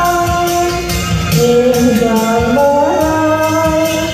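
A woman singing through a microphone over amplified backing music with a steady beat, holding long notes and gliding between them.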